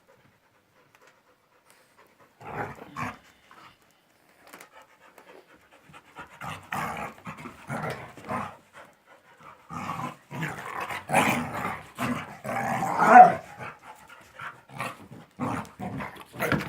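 Two dogs, a shar-pei and a white laika-type dog, play-fighting, with panting and grumbling growls in irregular bursts. The first couple of seconds are quiet, then the noise builds and is loudest a little past the middle.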